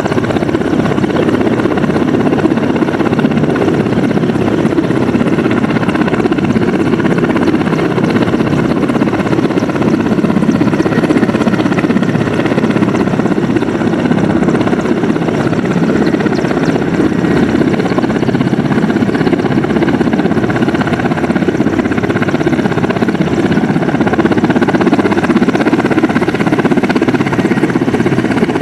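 Mil Mi-171Sh military transport helicopter hovering low and close: steady, loud rotor and turboshaft engine noise with a faint high whine, unchanging throughout.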